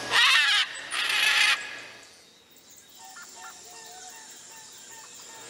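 Macaw squawking: two loud, harsh calls back to back in the first second and a half, followed by faint background chirps.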